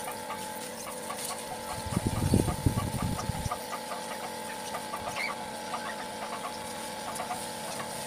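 A 12-volt DC mini pump washer running with a steady whine and fast ticking while it sprays water onto a scooter. A louder, deeper rush of spray comes about two seconds in and lasts about a second and a half.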